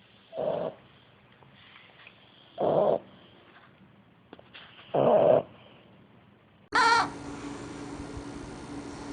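A sleeping dog snoring: three short snores about two and a half seconds apart. Near the end a different clip cuts in, with a brief pitched sound over a steady low hum.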